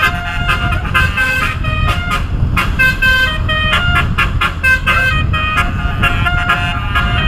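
Bus telolet horn playing a tune: a quick run of multi-tone horn notes that keep changing pitch, with short gaps, over a steady low rumble.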